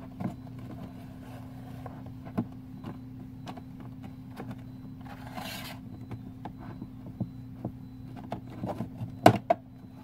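Keyboard case being pried open with a small screwdriver: scattered light clicks and scrapes of the tool working along the case edge, a longer scrape about five seconds in, and a sharp click near the end. A steady low hum runs underneath.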